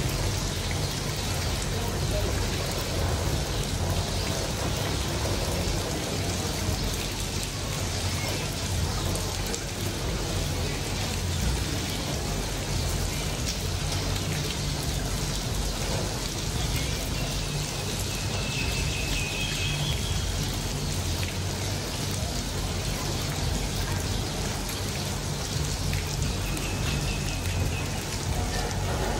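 Steady rain shower falling on a wet street and pavement, an even hiss of rain with a low rumble underneath.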